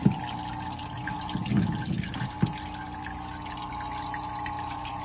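Turtle-tank hang-on filter running: a steady trickle of water splashing back into the tank over a low motor hum. A few short knocks in the first two and a half seconds as the metal mesh lid is handled.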